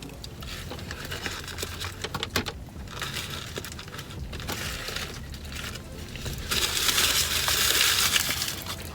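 Paper food wrappers and bag rustling and crinkling, with small clicks and handling noises. The rustling grows louder and denser for the last couple of seconds.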